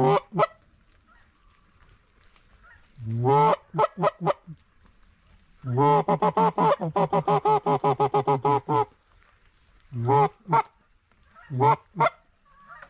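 Hand-blown Canada goose call sounding loud honks and clucks: a honk at the start, a few honks about three seconds in, a fast run of clucks, about five a second, from about six to nine seconds, then pairs of honks near the end.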